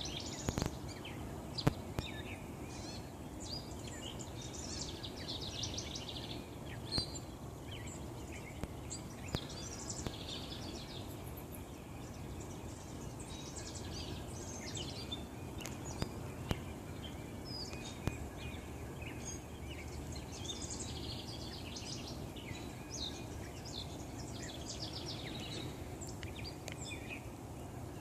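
Morning garden ambience: small birds chirping and singing in short scattered phrases over a steady low background rumble, with a few brief clicks.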